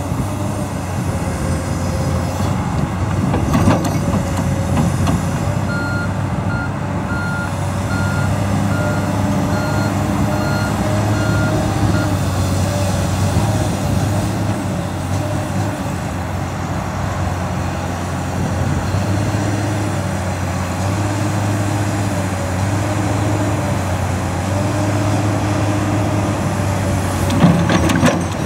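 Komatsu PC228USLC excavator's diesel engine running steadily, with a hydraulic whine rising and falling as the tilt bucket grades a ditch. From about six seconds in, a backup alarm beeps about eight times, evenly spaced. A sharp clank sounds twice, once near the start and once near the end.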